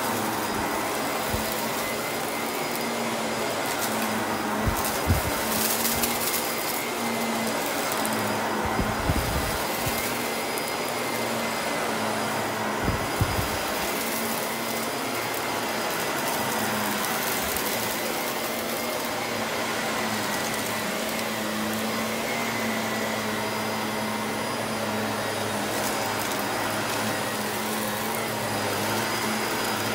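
Vacuum cleaner running steadily, with a few brief clatters about five, nine and thirteen seconds in.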